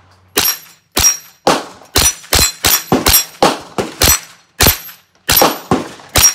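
A .22 rimfire 10/22-based race rifle firing a fast string of about thirteen shots, roughly two a second, at steel targets. Several shots are followed by the high ring of a struck steel plate.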